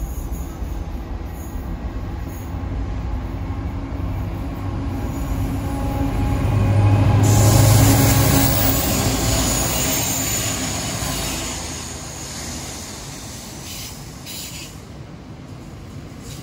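Two Class 59 diesel locomotives, each with a General Motors two-stroke V16 engine, pass under power, their low engine note swelling to its loudest about seven to eight seconds in. A high wheel squeal sets in as they pass and carries on under the rolling wagons while the sound slowly fades.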